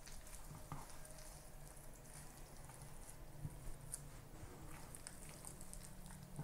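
Faint wet squelching and soft taps of raw turkey thigh meat being rolled by hand on a wooden cutting board, with a few small clicks, over a low steady hum.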